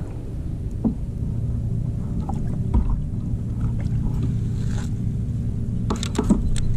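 A motorboat's engine drones steadily across the water, growing slowly louder. There are a few light clicks, and a short rattle of sharp sounds about six seconds in as a striped bass is swung up out of the water.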